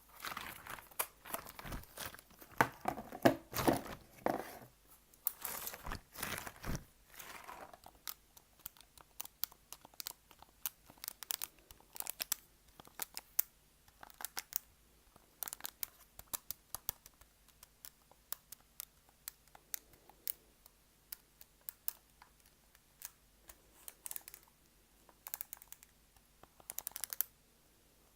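Close-up crinkling and crumpling of a crinkly material handled as an ASMR trigger, dense for about the first seven seconds, then thinning to scattered light clicks and ticks.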